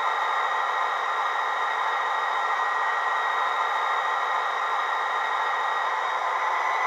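Factory DCC sound decoder in a Bachmann Class 57 model diesel locomotive playing a steady diesel engine idle through a pair of small 35x10x5 mm tablet speakers.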